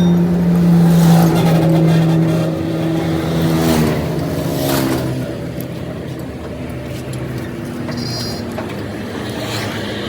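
A machine running with a steady hum that drops in pitch about four seconds in and then runs on lower, with a few sharp knocks.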